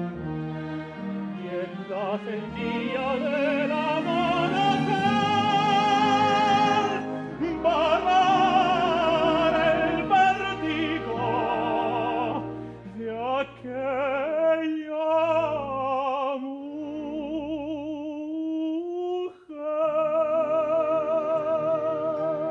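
A tenor sings an operatic romanza in Spanish zarzuela style, with wide vibrato on long held notes and a phrase that climbs steadily in pitch over the first few seconds, over instrumental accompaniment.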